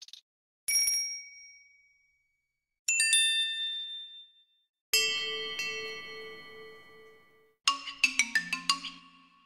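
Four separate Android phone notification chimes in turn, each a short set of ringing tones that die away, with silence between them. The third rings longer over a pulsing lower tone, and the last is a quick run of about eight short notes.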